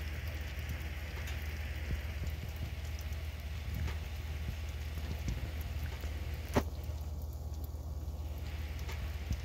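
Butternut squash cubes sizzling in their juices in a glass baking dish in a hot oven: a steady fine crackle over a low steady hum, with one sharp click about two-thirds of the way through.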